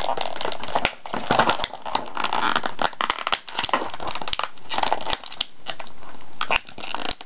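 Clear plastic wrapping crinkling and crackling in the hands as a small boxed toy is unwrapped, in an irregular run of crackles.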